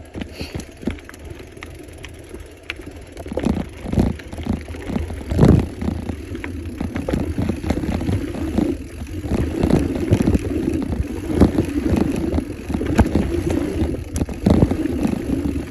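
Mountain bike descending a dirt trail: a continuous rumble of knobby tyres rolling over packed dirt, broken by frequent knocks and rattles as the bike jolts over bumps, the sharpest about five and a half seconds in.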